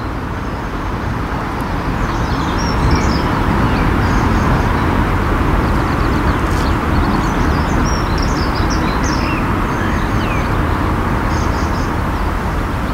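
A steady rushing noise with a low rumble, swelling slightly over the first few seconds, with small birds chirping on and off over it.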